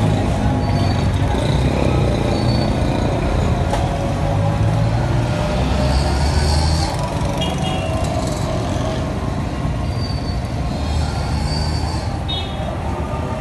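Steady street traffic noise: vehicle engines rumbling.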